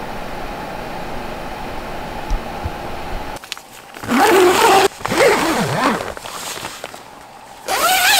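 Door zipper of a Decathlon 2 Seconds Easy darkout pop-up tent being pulled shut in a few strokes, each a buzz that rises and falls in pitch with the speed of the pull, starting about four seconds in and again near the end. Before that there is a steady low hum.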